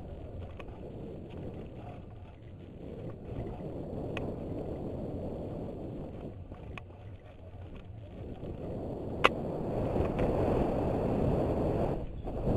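Wind rushing over a helmet-mounted GoPro and mountain-bike tyres running on a dirt downhill trail, with a few short sharp clicks and rattles from the bike, the loudest about nine seconds in. The rush grows louder in the second half as the bike picks up speed.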